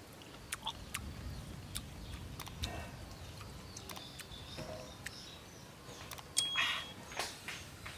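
Scattered light clicks and knocks, with a few short chirps and a brief noisy burst near the end.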